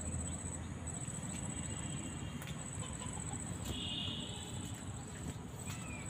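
Outdoor ambience: an insect trills on and off in a high, pulsing chirr throughout, and a bird calls briefly about four seconds in, over a steady low rumble.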